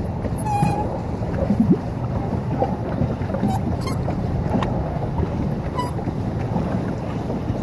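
Paddle boat under way: a steady rushing noise of water churned by the paddle wheel, mixed with wind on the microphone. A few brief high-pitched sounds stand out over it.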